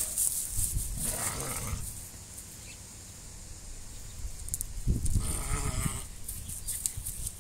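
Livestock bleating twice: a short wavering bleat about a second in, then a longer, quavering one about five seconds in.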